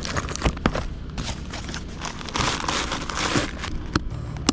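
Plastic-wrapped grocery packs crinkling and rustling as they are stuffed into a motorcycle saddlebag, with sharp clicks and knocks of the items and the bag. The rustling is densest a little past the middle.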